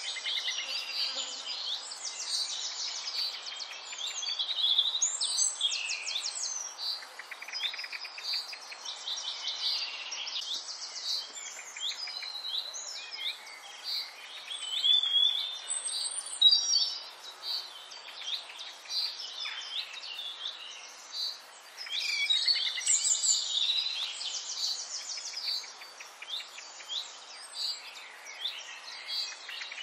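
Birds chirping and singing, a busy mix of quick trills and short rising and falling calls.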